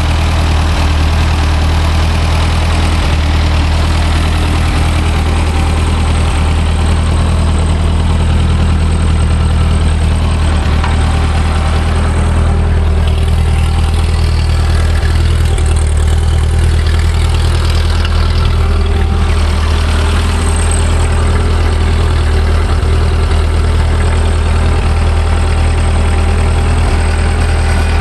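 Ford 8N tractor's four-cylinder flathead engine idling steadily, cold, just after being started on the choke.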